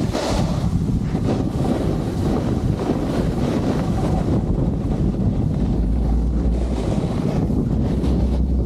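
Wind buffeting an Insta360 action camera's microphone during a ski run: a steady rushing rumble and hiss, heavier in the low rumble from about six seconds in.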